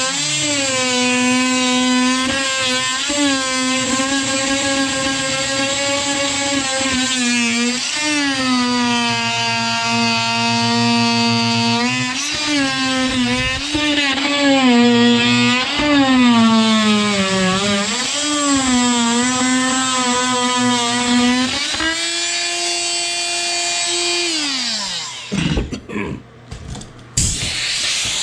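Electric drill motor running for a long stretch, its whine holding, sagging and rising as the trigger and load change, then spinning up and winding down with a smooth falling pitch about 24 seconds in. A few short rough noises follow near the end.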